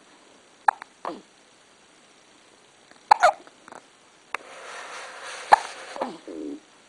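Someone hiccuping: several short, sudden hiccups spaced a second or more apart, with a soft rushing noise under the last few.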